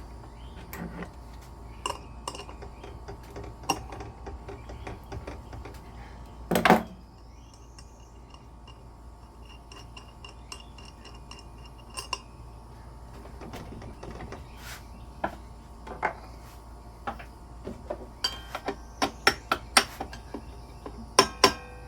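Metal tools and saw parts clinking and clicking as the blade bolt of a Delta compound miter saw is worked loose by hand: scattered light clicks, one loud clank about seven seconds in, and a quick run of clicks, three or four a second, near the end.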